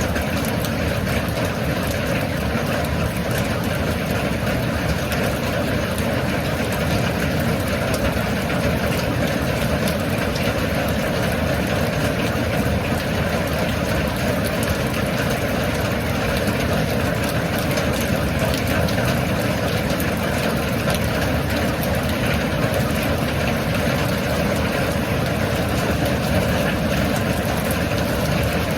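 Steady rain: a dense, even hiss with many fine ticks of drops, unchanging throughout.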